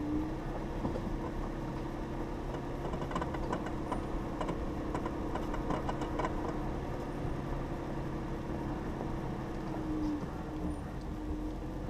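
2015 Jeep Grand Cherokee running at a slow crawl up a rough dirt trail, heard from inside the cabin as a steady engine and drivetrain hum. Scattered clicks and rattles come through around the middle as the vehicle goes over the uneven ground.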